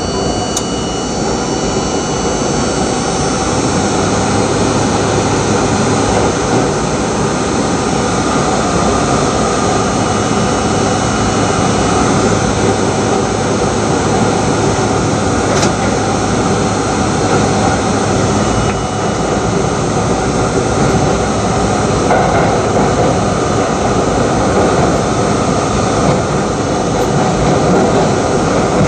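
R32 subway train running through a tunnel, heard from inside the front car: a steady, loud roar of wheels on rail and running gear, with a low steady hum under it for much of the run.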